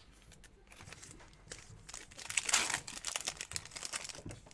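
Foil trading-card pack wrapper being torn open and crinkled by hand, loudest about two and a half seconds in, with small clicks as the cards are handled.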